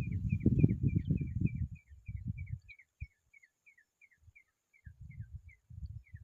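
A small bird giving a steady series of short, slightly falling chirps, about three a second. Under them runs low muffled rumbling, loudest in the first two seconds, that returns near the end.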